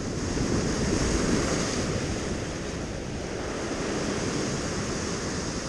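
Sea surf breaking and washing over shoreline rocks, swelling louder in the first couple of seconds and then easing, with wind buffeting the microphone.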